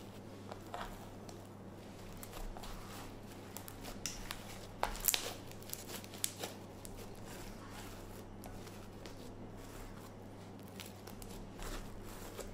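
Sticky homemade slime with plastic fake snow mixed in, kneaded and squeezed by hand: scattered crisp clicks and pops, loudest about five to six seconds in, over a faint steady hum.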